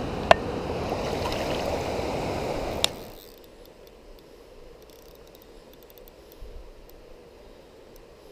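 Steady rush of river water running close by, with two sharp clicks. About three seconds in it cuts off abruptly to a faint, quiet background.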